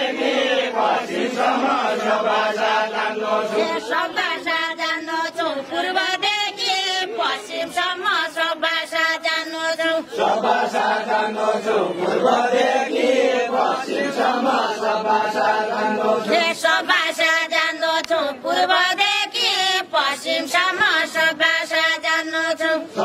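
A group of voices singing a Deuda, the unaccompanied folk song of Far-Western Nepal, in steady chanted phrases, some sung by a few voices and some by many.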